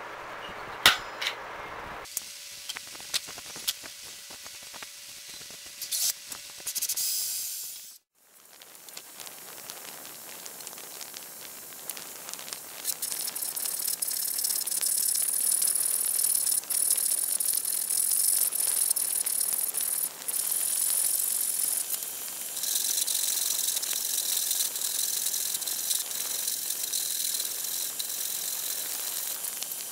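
Husky handsaw cutting a wooden board held in a bench vise: steady back-and-forth strokes through most of the second half. Earlier there are a few sharp taps and a short break.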